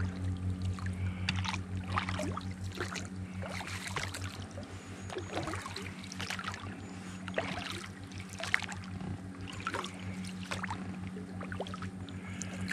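Water splashing and lapping around an inflatable boat as it moves across the river, in many short irregular splashes over a steady low hum.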